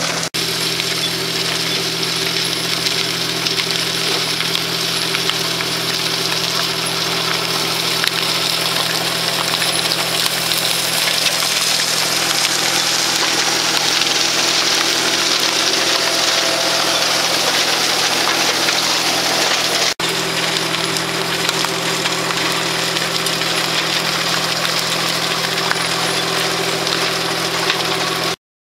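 Tractor engine running steadily as its hydraulic vineyard sweep heads spin through the dirt along the row, with a steady hiss over the engine note. There is a brief break about two-thirds of the way through, and the sound cuts off suddenly near the end.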